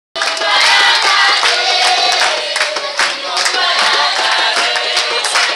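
A large group of children singing loudly together, many voices in chorus.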